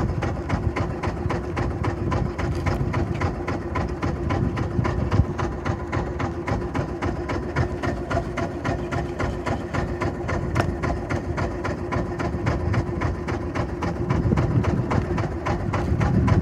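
Fishing boat's engine idling, a steady low running beat of about six or seven pulses a second.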